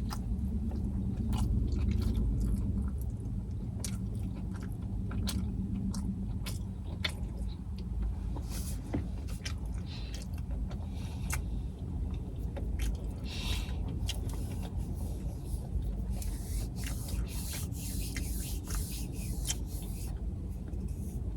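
Close-up eating sounds of fish sliders being bitten and chewed: many small wet mouth clicks and smacks, over a steady low rumble.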